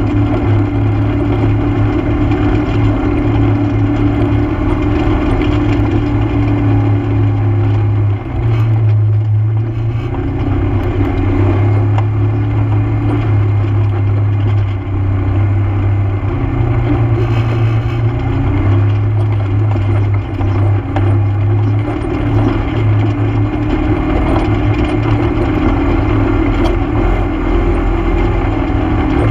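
ATV engine running steadily under throttle while riding a trail, a constant loud drone heard close up. The engine dips briefly about eight seconds in.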